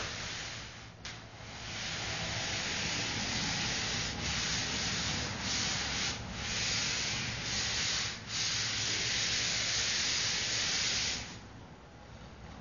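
Drawing medium rubbed back and forth on paper: a steady scratchy rubbing broken by a few brief lifts, which stops about 11 seconds in.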